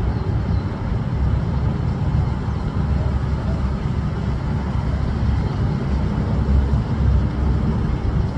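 Steady low rumble with a fainter hiss above it and no distinct events.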